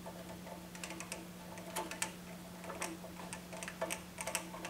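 Hand screwdriver driving screws back into the metal mounting bracket of a Kanto MTM65 TV stand: irregular light clicks and ticks, some in quick clusters, over a steady low hum.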